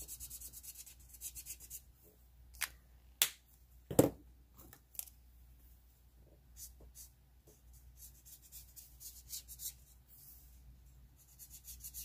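Alcohol marker nib scratching over glossy photo paper in quick short strokes at the start and again later. A few sharp clicks and a louder knock about four seconds in come as the markers are swapped.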